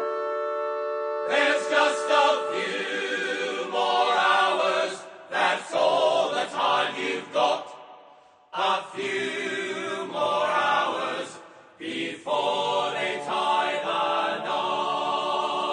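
Music-hall style Broadway show tune from a cast recording: a held orchestral chord opens, then voices sing over the orchestra. The music breaks off briefly about eight and twelve seconds in.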